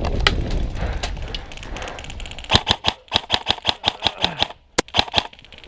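Airsoft gun firing a rapid string of sharp shots, about seven a second, with a brief pause before a last few, preceded by a couple of seconds of gear and movement rustle.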